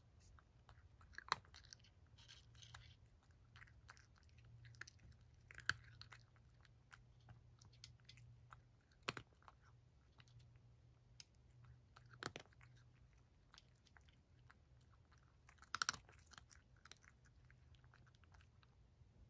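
A domestic cat eating dry kibble from a wooden dish: faint chewing, with a short sharp crunch every few seconds.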